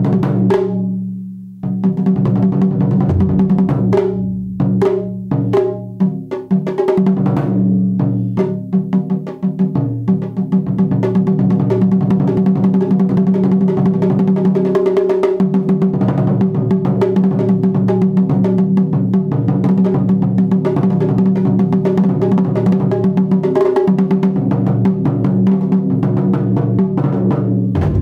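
Japanese taiko drums struck with wooden bachi sticks, each stroke ringing low and full. It starts with separate heavy strokes and short pauses, then from about ten seconds in becomes a fast, continuous run of strokes that stops just before the end.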